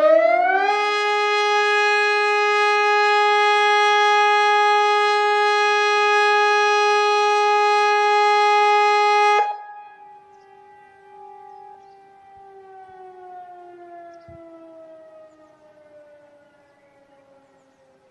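Sonnenburg SES600 civil defence siren on its weekly test alarm, which the uploader marks as a failed run. The tone finishes rising within the first second and holds steady for about nine seconds. Then the level drops suddenly and the pitch slowly falls away as the siren winds down and fades out.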